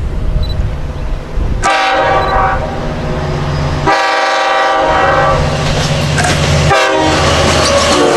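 Long Island Rail Road diesel locomotive passing close by with its engine running loudly, sounding its horn in several blasts: one from about a second and a half in, a stronger one about four seconds in, and a short one near the end.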